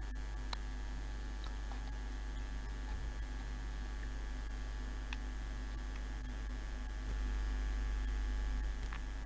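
Steady low electrical mains hum picked up by the recording microphone, swelling slightly about seven seconds in, with a few faint clicks.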